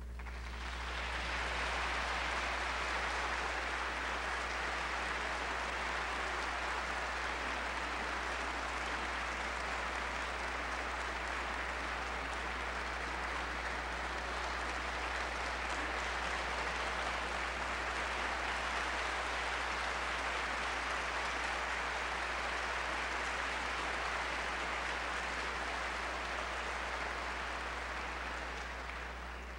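Audience applauding steadily, dying away near the end, over a steady low hum.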